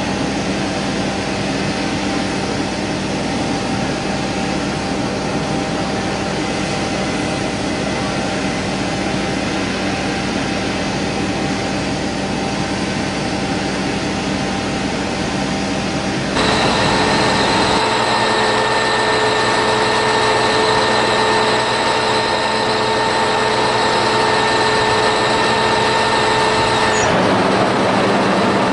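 Swabbing unit's engine and machinery running steadily. About two thirds of the way through it gets louder and a high whine joins in, holding for about ten seconds before stopping near the end.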